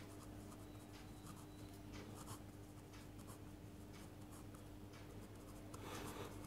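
Faint scratching of a marker pen writing on paper, in many short strokes.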